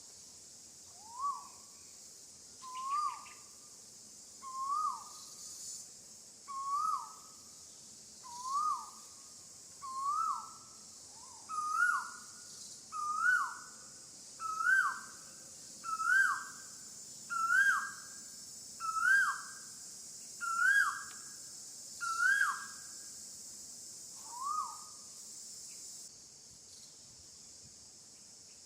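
A series of about fifteen short calls, each a quick rise and fall in pitch, repeated roughly every second and a half. The calls climb in pitch and loudness through the series and the last is softer. Steady insect buzzing runs underneath and stops near the end.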